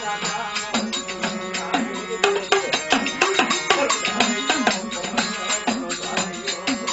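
Gujarati folk music with fast, regular drum strokes under a melodic line.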